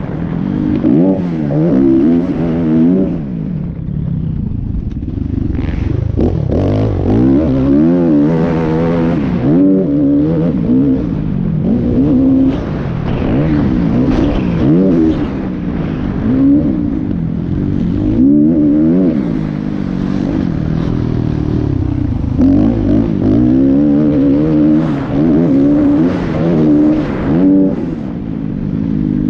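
Motocross dirt bike engine heard from on the bike, revving up and falling back over and over as the rider accelerates, shifts and backs off around the track.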